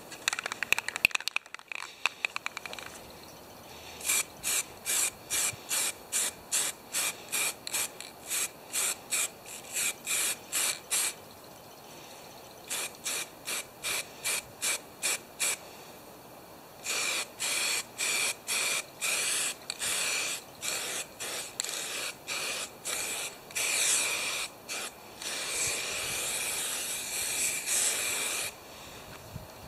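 Aerosol spray-paint can: a quick rattle of the mixing ball as the can is shaken, then the spray hissing in short bursts about two a second, later in longer passes.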